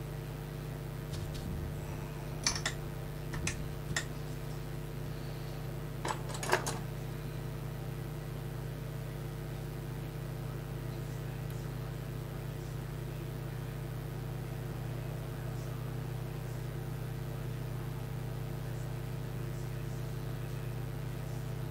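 A steady machine hum from bench equipment. Five light, sharp clicks and taps of small tools come in the first seven seconds, two of them close together near the end of that run.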